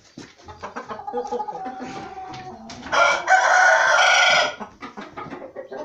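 An Aseel game rooster crows once, loudly, about three seconds in, the crow lasting about a second and a half, with fainter clucking before it.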